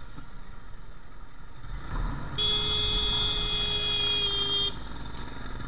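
A vehicle horn sounds one steady blast of a little over two seconds, starting about two and a half seconds in, over street traffic and engine noise.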